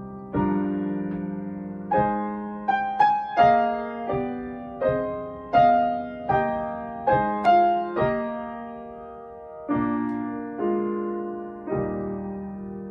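Solo piano playing a slow melody over chords, each note struck and left to die away.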